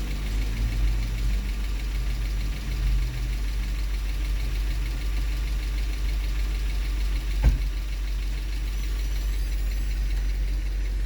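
Car engine idling steadily, a constant low rumble. A single sharp knock is heard about seven and a half seconds in.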